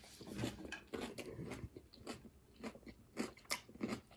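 Close-up crunching and chewing of raw salad vegetables such as cabbage and onion, in a run of short crisp crunches.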